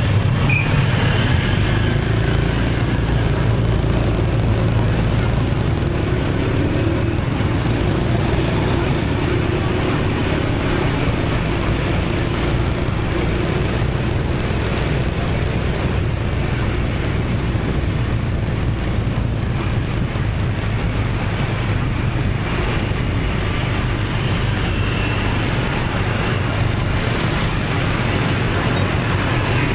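Riding a motorbike in dense city traffic: the bike's engine running steadily under wind and road noise, with the steady sound of surrounding motorbikes and cars.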